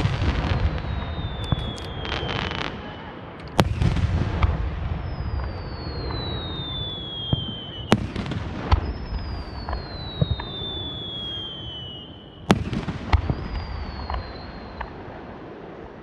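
Aerial firework shells bursting: a loud bang about every four seconds, each followed by a rumbling echo. Crackling sounds come between the bangs, along with high whistles that slowly fall in pitch.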